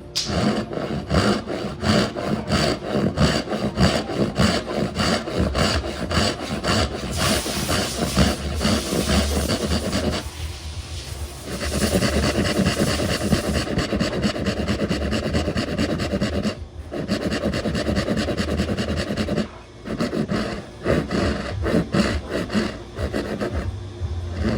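A hand tool working wood in rapid, repeated strokes: a dry scraping, rasping sound of cutting into the stock, with a few short pauses.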